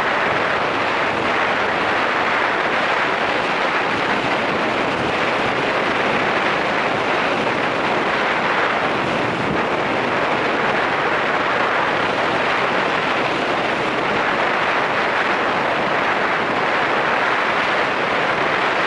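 Steady wind rush on the microphone of a Yamaha SRX400 motorcycle under way, with its running and road noise beneath.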